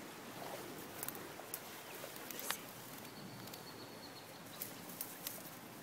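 Steady hiss of a small stream running over rocks, with scattered light rustles and snaps of grass and dry twigs, and a faint, thin high note for about a second and a half midway.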